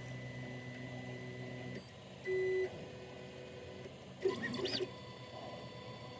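Onefinity CNC router's stepper motors whining as the machine moves its axes through a touch-off probing routine, in separate short moves at different pitches: a steady whine for nearly two seconds, a short louder tone a little after two seconds, and a brief warbling burst past four seconds.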